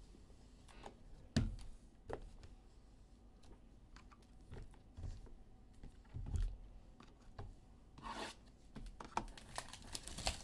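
Sealed cardboard sports-card hobby boxes handled on a table: a few thumps and taps, the firmest about a second and a half in. Near the end, cellophane shrink wrap crinkles and tears as it is pulled off a box.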